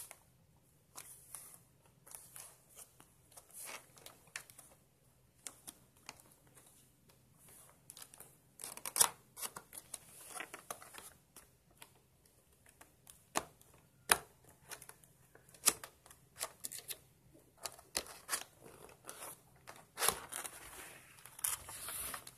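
Cardboard keyboard box being opened by hand, its inner tray slid out of the sleeve: rustling and scraping with irregular sharp taps and clicks, the loudest about nine seconds in.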